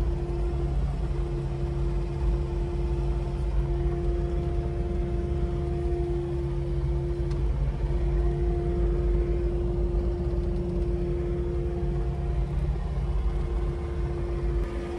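Kubota KX080-4 excavator's diesel engine running steadily under work, a low rumble with a steady whine held over it.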